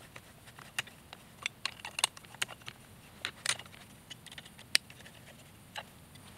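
Scattered light metallic clicks and taps from a hand tool and small hardware as a bracket's screws are tightened down. They come at irregular intervals, with one sharper click about three-quarters of the way through.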